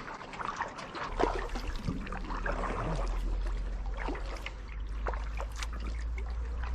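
Water trickling and splashing in small drips and dribbles close by, with a low steady rumble that comes in about a second in.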